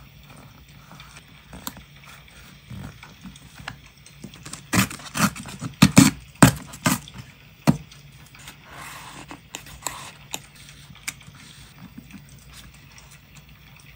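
Paper being torn along a metal scalloped-edge tearing ruler: a cluster of sharp tearing cracks about five to eight seconds in. Around it, quieter rustling of paper being handled and pressed onto a notebook page.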